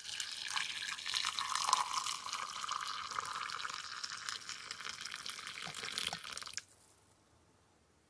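Hot water poured in a steady stream into a glass measuring jug, splashing over a foil pouch standing in it; the pour stops abruptly about six and a half seconds in.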